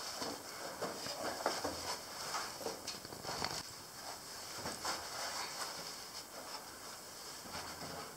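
Boots knocking and scuffing on the rungs of a wooden ladder in an uneven rhythm during a climb, over a steady faint hiss.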